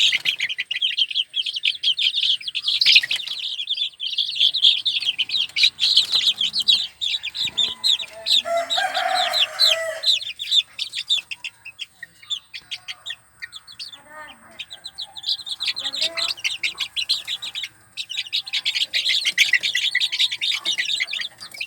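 A brood of baby chicks peeping rapidly and continuously, many high chirps overlapping, thinning out for a few seconds past the middle. About nine seconds in, an adult chicken gives a lower call lasting over a second, and a few fainter low clucks follow later.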